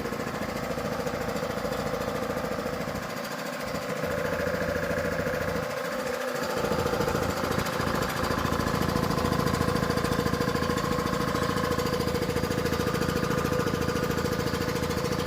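3 HP two-stage reciprocating piston air compressor running, with a rapid, steady pounding of the pistons over a steady hum. It gets louder about four seconds in and again about eight seconds in.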